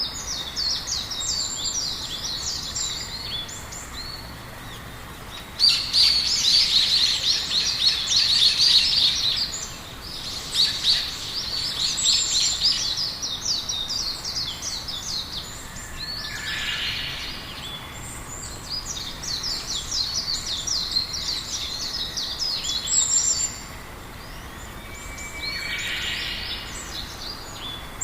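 Songbirds singing: long phrases of rapid, high chirps with short pauses between them, over a faint steady outdoor hiss.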